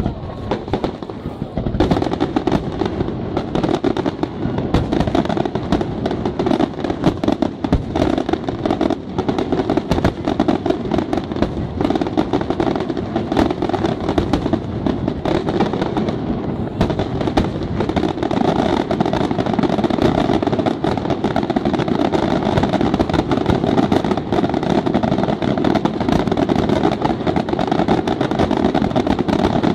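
Aerial firework shells bursting in a dense, continuous barrage: many sharp bangs in rapid succession, growing thicker about two seconds in.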